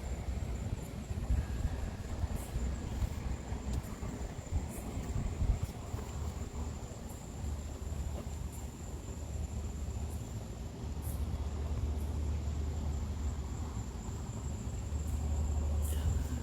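Steady high-pitched insect chirring, typical of crickets at night, over a louder low rumble with a few faint clicks.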